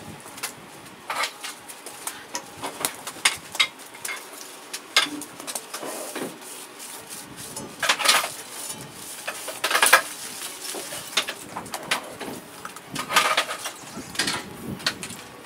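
Scouring pad scrubbing over the face of a rust-etched steel saw blade in quick, uneven strokes, rubbing and scraping the metal.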